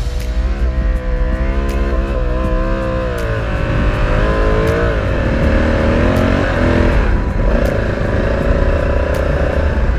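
Adventure motorcycle engine revving hard, its pitch rising and falling with the throttle, then holding steadier in the second half.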